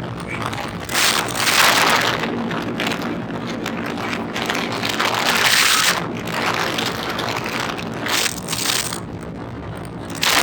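Motorboat engine running steadily, with several loud rushing swells of wind and water noise over it.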